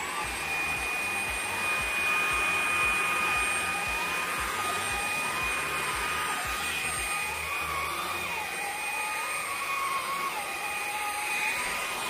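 Dreame V11 cordless stick vacuum's high-speed digital motor running steadily in Medium mode while cleaning carpet: an even whine with a lower tone that wavers slightly.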